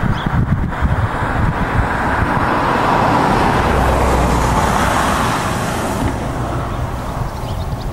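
A car passing on the road, its tyre and engine noise swelling to a peak about halfway through and fading away, over a steady low rumble.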